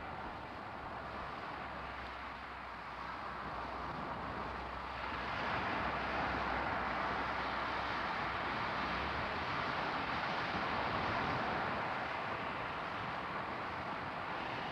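A steady rushing noise, which grows louder about five seconds in.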